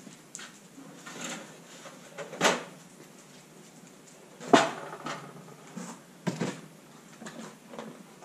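Toaster oven door opened and a metal tray pulled out and set down on a workbench: a few separate metallic clanks and knocks, the loudest about four and a half seconds in.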